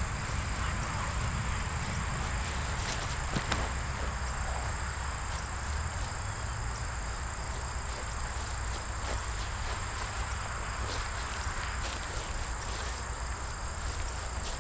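Steady high-pitched chorus of insects, one unbroken tone that does not change, over a low constant rumble.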